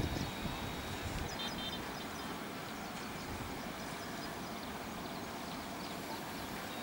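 Steady outdoor background noise with a low rumble fading out in the first second or so, and a bird's short high chirps about a second and a half in.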